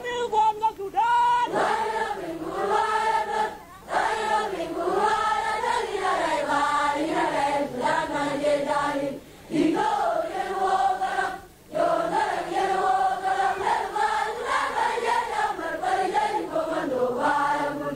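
A large group of voices singing together in unison, with long held notes and short breaks for breath about 4, 9 and 11½ seconds in.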